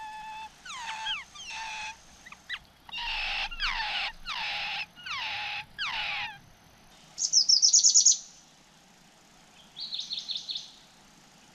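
Birds calling: a string of whistled calls, each sliding down in pitch, over the first seven seconds. Then a fast run of high, rapidly repeated notes about seven seconds in, and a shorter, softer run near the end.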